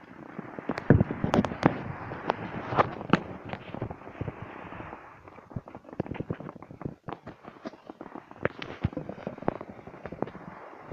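Skis scraping and crunching over hard-packed snow, with many sharp crackles and clicks over a sliding hiss that is stronger in the first half.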